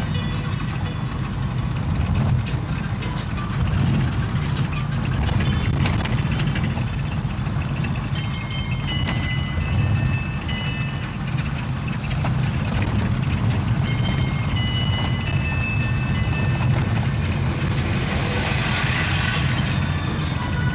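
Mahindra Bolero Pickup's diesel engine and road noise heard inside the cab while cruising, a steady low drone. A hiss swells briefly near the end.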